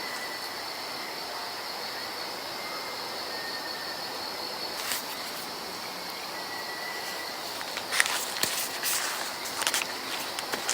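Several faint, short whistles of unknown origin, each held at a steady high pitch for under a second, over a continuous insect chorus. A few sharp clicks near the end are the loudest sounds.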